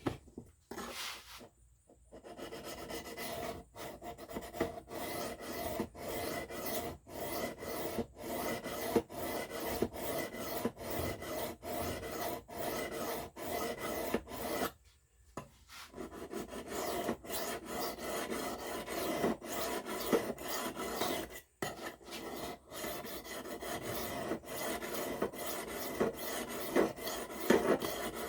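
Steel knife edge stroked repeatedly across a 600-grit Lansky sharpening stone, a quick run of rasping strokes broken by a few short pauses. This is the finer-grit stage, refining the S35VN edge after the chips were ground out.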